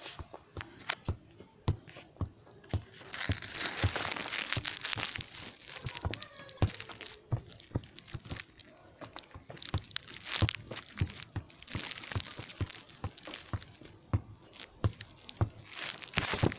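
A football tapped and pushed about with the feet, with footsteps on grass: irregular sharp taps and thuds, with spells of rustling.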